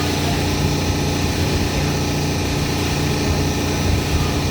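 An engine running steadily at a constant speed with an even hum.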